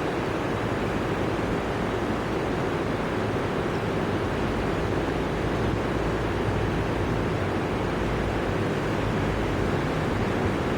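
Steady rushing of a river running high, an even noise with no breaks.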